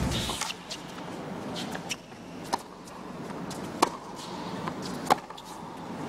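Tennis rally: the ball struck by rackets back and forth, sharp pops about every second and a half over low arena hiss, the loudest three in the second half.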